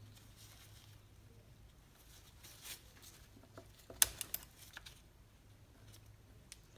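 Faint handling clicks and taps as a fitting on an Echo SRM-225 string trimmer's carburetor is turned loose by hand, with a sharper cluster of clicks about four seconds in. A low steady hum runs underneath.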